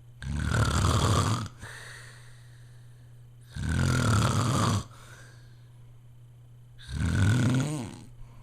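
A sleeping man snoring loudly: three long snores, each lasting a little over a second, coming about every three and a half seconds.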